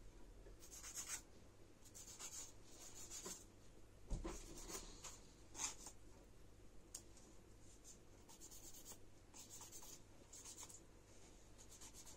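Faint scratchy strokes of a nail file working on fingernails, in short spells of about half a second with pauses between. There is a soft thump about four seconds in.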